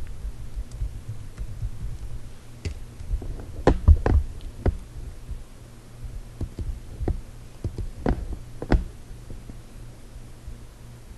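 Computer keyboard keys tapped irregularly while a word is typed, then a few mouse clicks, with soft knocks on the desk over a steady low hum.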